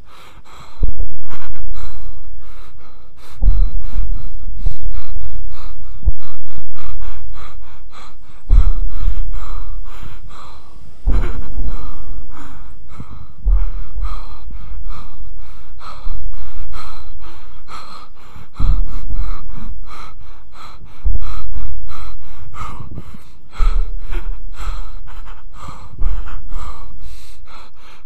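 Film-intro sound design: deep bass hits about every two and a half seconds, each one fading away, over a rapid run of clicks.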